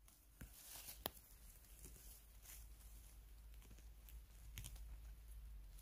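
Faint rustling with scattered small cracks and snaps of someone moving about on the forest floor while picking mushrooms, over a faint low rumble.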